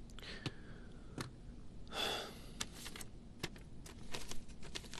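Quiet room sounds: a soft breathy sigh about two seconds in, then scattered light clicks and taps of hands at a laptop and papers.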